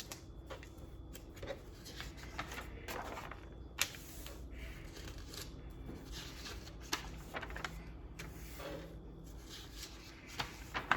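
Pages of a picture book being turned and handled: soft, scattered paper rustling with a few light clicks, over a faint low hum.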